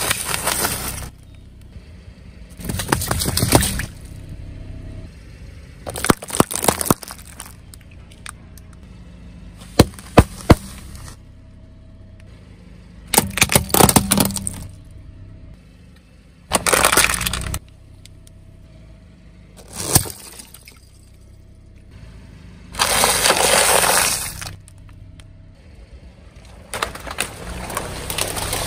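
A car tyre crushing a series of objects one after another: about nine separate crushes a few seconds apart, each a burst of crackling and sharp snapping, among them red plastic sunglasses breaking. Near the end, a pile of long water balloons bursts under the tyre.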